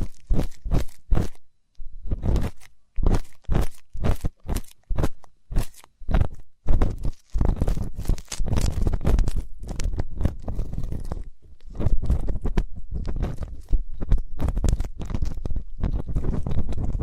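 Ear-cleaning ASMR: an ear-cleaning tool scraping and rubbing right at the microphone in short strokes with brief gaps, turning into a denser, nearly unbroken run of scratching from about halfway.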